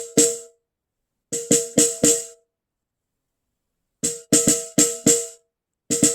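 Small snare drum struck in short groups of quick strokes with pauses between them. Each stroke rings with a clear pitched overtone.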